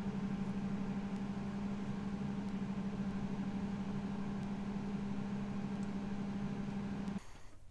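A steady low mechanical hum with a strong fixed tone, which cuts off suddenly about seven seconds in.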